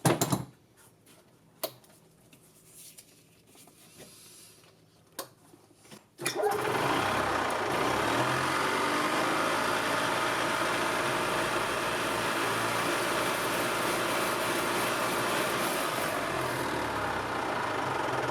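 A few light clicks, then about six seconds in the 1997 E-Z-GO TXT golf cart's single-cylinder four-stroke gas engine starts suddenly and runs steadily at high speed, its governor set to the maximum.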